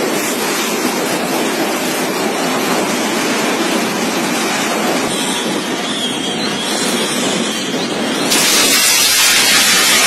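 Storm wind blowing hard with heavy rain, a loud steady rush. About eight seconds in it turns louder and hissier as a stronger gust or burst of rain comes through.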